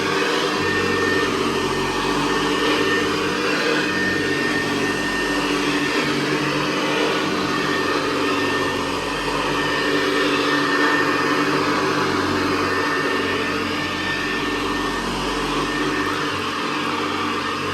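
Hoover Convertible Model 68 upright vacuum cleaner running on carpet: a steady direct-air motor and fan hum with a thin high whine, its level wavering slightly.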